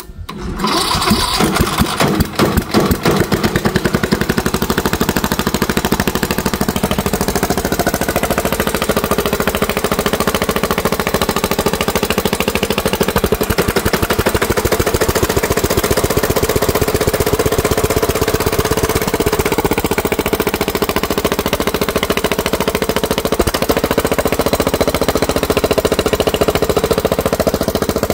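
19.5 hp Briggs & Stratton Professional Series small engine catching about a second in and then running steadily. It is being jump-started from a battery, with the fuel shutoff wired to 12 V and the choke rigged.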